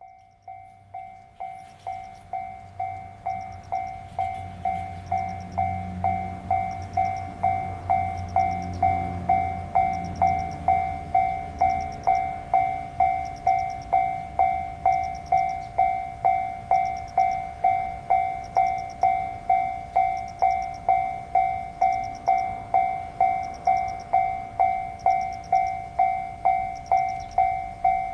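Japanese railway level-crossing warning bell ringing in an even, steady rhythm, just under two strikes a second, growing louder over the first few seconds. A low rumble runs under the bell and fades out about twelve seconds in.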